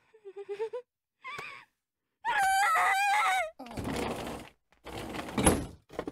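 A young woman's wordless vocal sounds: a few short high-pitched squeaks, then a louder, longer squeal wavering up and down in pitch, followed by two longer breathy sounds.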